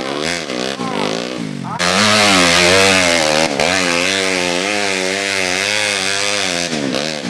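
Trail motorcycle engine revving hard under load on a steep dirt hill climb, its revs rising and falling over and over as the throttle is worked. It gets louder about two seconds in.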